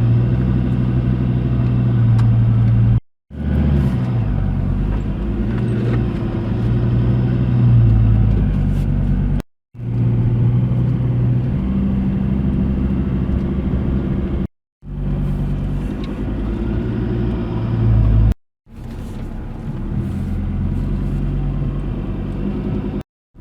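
Four-wheel-drive vehicle's engine running while driving, its pitch rising and falling with the throttle. The sound breaks off abruptly four times where short clips are joined.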